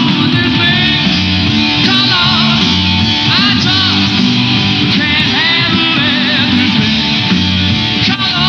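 Rock band playing live: drums, electric guitar and a strummed acoustic twelve-string guitar under a lead voice. The sound is dull, with no top end, as on a multi-generation VHS copy of a TV broadcast.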